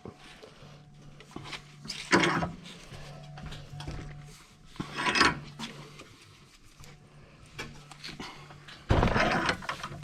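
Three short bursts of metal parts and tools being handled and worked, about three seconds apart, the last the loudest, over a faint steady hum.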